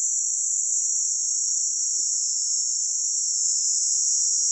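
Steady, high-pitched insect chorus that runs without a break.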